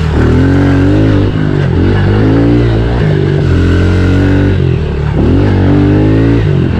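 Honda CRF110 pit bike's small single-cylinder four-stroke engine running under load from on board the bike, its pitch rising and falling several times as the throttle is opened and rolled off along the dirt track.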